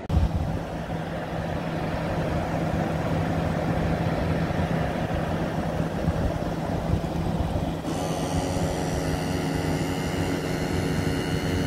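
Small 12-volt portable air compressor running steadily with a low, even hum, pumping the bait launcher's air tank up toward about 150. About eight seconds in, a higher whine joins the hum.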